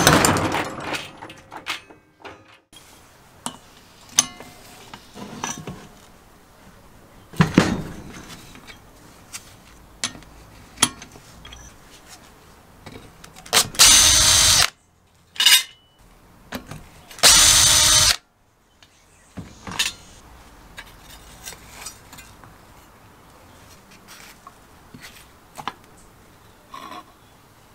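Power drill with a socket spinning out the cylinder head bolts of a small Briggs & Stratton engine. It runs in short bursts: one right at the start and two loud runs of about a second each around the middle. Between the runs come short clicks and knocks of metal parts being handled.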